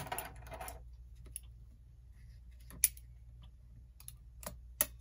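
Scattered light clicks and taps from handling small tools and parts: locking pliers, a piece of cardboard and a clock's set knob. The two sharpest clicks come near three seconds in and just before the end.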